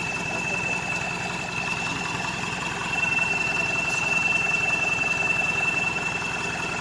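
Off-road vehicle engine idling steadily, a low rumble that grows a little louder about three seconds in, with a steady high-pitched tone running over it.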